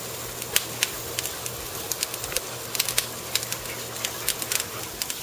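Bone-in ribeye steak sizzling on a hot charcoal grill grate: a steady hiss broken by frequent irregular sharp pops and crackles of spitting fat.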